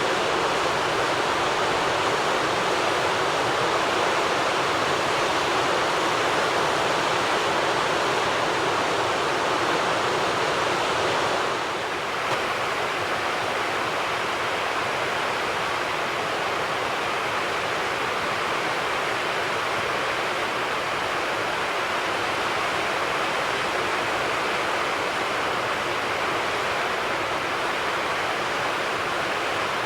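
Steady rush of flowing water, with no calls standing out; the level dips slightly about twelve seconds in.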